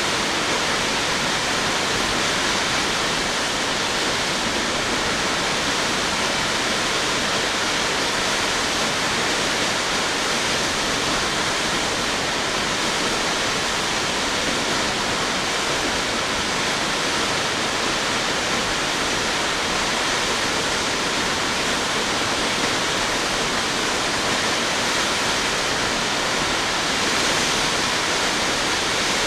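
Steady, even rush of a tall waterfall, South Falls, plunging about 177 feet into its pool.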